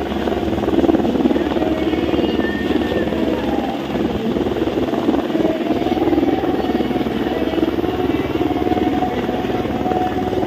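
Light single-engine helicopter flying low overhead, its main rotor giving a steady, rapid chop with the turbine running beneath it.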